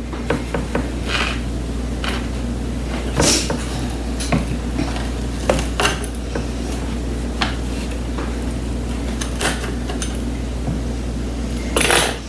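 Wheel pizza cutter rolling through a crunchy baked pizza crust onto a wooden cutting board: irregular crunches and clicks, with a louder crunch near the end.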